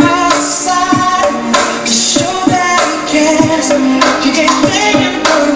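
A pop song with singing and a steady drum beat, played loudly through car-audio speakers on a shop demo wall: Pride Solo mini midrange speakers with a horn tweeter added.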